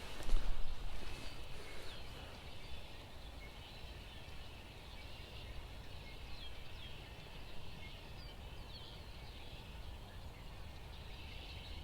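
Steady rush of a flowing creek with small birds chirping now and then. A brief louder knock or handling noise about half a second in.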